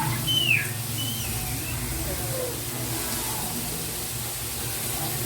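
Food sizzling steadily as it fries in a pan, with a few short, high chirp-like sounds in the first second or two.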